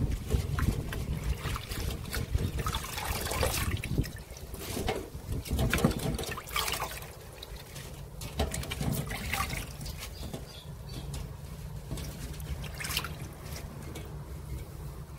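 Water splashing over baby cabbage leaves being rinsed by hand in a stainless steel mesh strainer in a sink, with irregular splashes and wet leaves rustling, busier in the first half.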